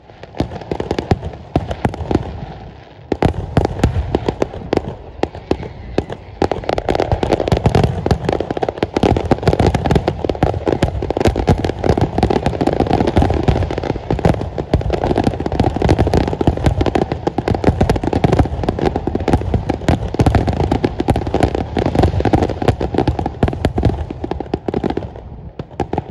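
Fireworks finale: a loud, dense barrage of aerial shells bursting in quick, overlapping bangs, with a brief lull about three seconds in, stopping suddenly near the end.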